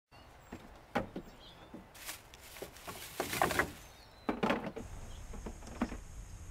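Camping gear being loaded and shifted in a pickup truck bed: scattered knocks and clunks, with two longer stretches of rustling and scraping in the middle, and a few faint bird chirps.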